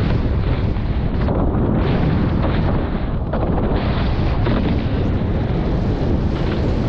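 Heavy wind buffeting on the microphone, a steady low rumble, over the rush of water along the hulls of a Formula 18 racing catamaran sailing fast.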